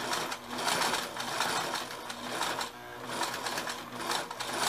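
Singer domestic sewing machine running, stitching the second side of a buttonhole in zigzag on buttonhole setting 3 while the fabric feeds on its own. Its loudness swells and eases a few times as the speed changes.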